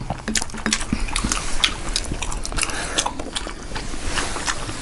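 Close-miked chewing and lip-smacking, a quick irregular run of wet mouth clicks.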